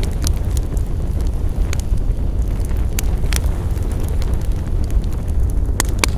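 Wood fire crackling: a steady low rush of burning with scattered sharp pops and snaps, two of them close together near the end.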